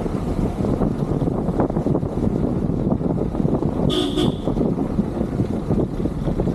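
Car driving slowly along a rough dirt lane: a steady low rumble of engine and road noise, with one short car-horn toot about four seconds in.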